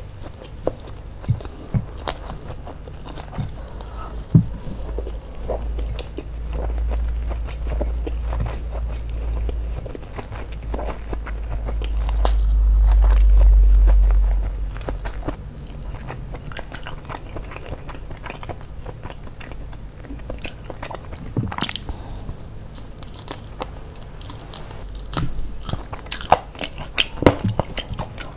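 Close-miked chewing and biting of crispy fried chicken and rice, with many sharp crunching clicks. A deep low rumble swells in the middle and fades about halfway through.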